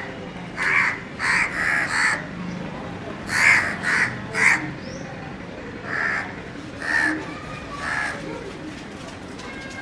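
House crow cawing repeatedly at a cat as it harasses it: about ten caws in quick groups of three or four, the last three softer and spaced about a second apart.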